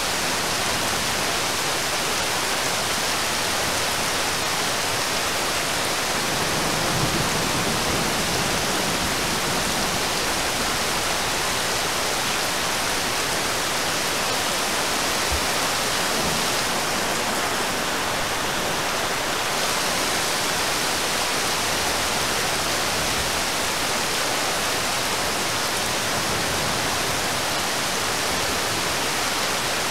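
Steady heavy rain falling on the surface of a river, an even hiss that keeps up without a break.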